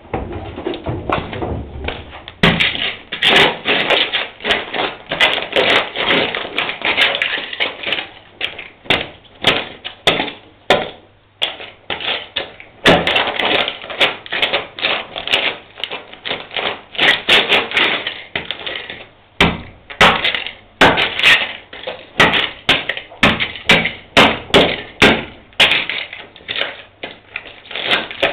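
Boots crunching and stomping on broken glass and debris on a concrete floor: bursts of dense crackling, then separate heavy treads about one to two a second in the last several seconds.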